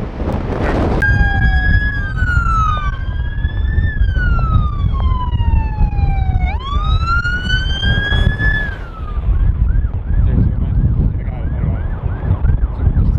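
Police car siren starting suddenly about a second in with a slow rising and falling wail, then switching to a fast yelp of about three sweeps a second near the end. Heavy wind buffets the microphone underneath.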